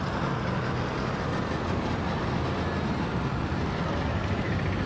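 A procession of golf carts and side-by-side utility vehicles passing slowly close by, with a steady low engine hum.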